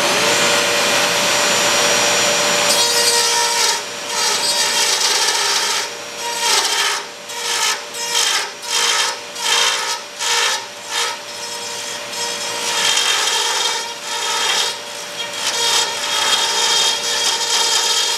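Dremel rotary tool with a carbide reaming bit running at high speed, with a vacuum hose drawing off the dust at the hole. From about three seconds in the bit grinds into the carbon fiber roof panel in repeated short passes, about two a second in the middle, enlarging a hole to clear a roof-rack mounting lug.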